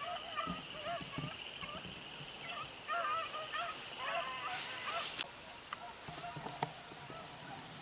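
Hunting dogs baying as they run a rabbit: a string of short, yelping calls over the first five seconds, with a steady high tone behind them until about four seconds in, then quieter with a few light clicks.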